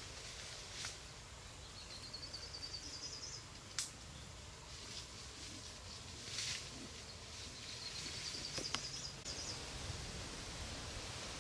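Outdoor ambience with a bird singing twice, each song a quick run of high notes rising in pitch over about a second and a half. A few sharp clicks fall in between.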